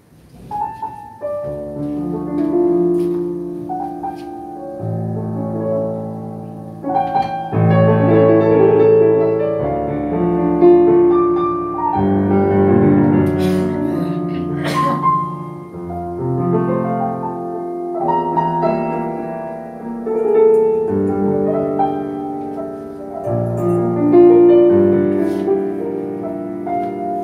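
Piano playing the slow introduction to a Vietnamese ballad: held chords with a melody line over them.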